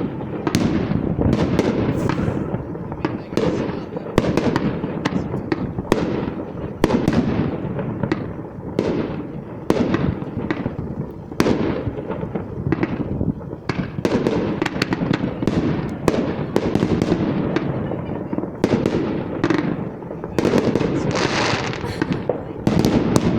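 Fireworks going off close by in a dense barrage: sharp bangs about twice a second over continuous crackling, with a longer crackling burst near the end.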